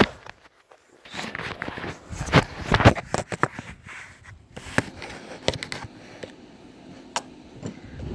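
Irregular clicks, knocks and rustling from a BB gun being handled and aimed, loudest about two and a half to three seconds in, with a single sharp click near the end.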